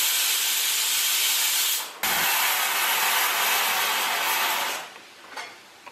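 Pressure cooker whistle venting steam in a loud, steady hiss. The cooker has come up to pressure, and each such whistle marks cooking time. The hiss breaks off briefly with a low thump about two seconds in, resumes, and stops shortly before the end.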